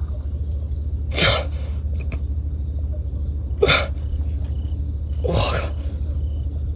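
Three short, sharp breathy bursts, like hard exhales or sniffs from a person close to the microphone, over a steady low rumble.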